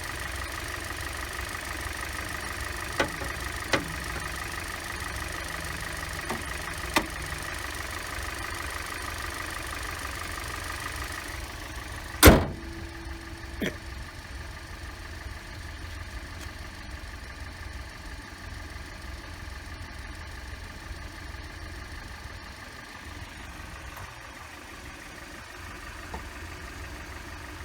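2015 Hyundai Elantra's four-cylinder engine idling steadily, running on freshly replaced spark plugs and ignition coils. A few light clicks come early on, two steady tones stop about 11 seconds in, and a single loud sharp knock follows about 12 seconds in.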